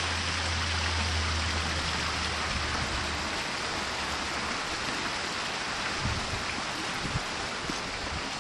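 Steady rush of running water from the pond's waterfall, with a low rumble that fades out about three seconds in and a few soft knocks a little past the middle.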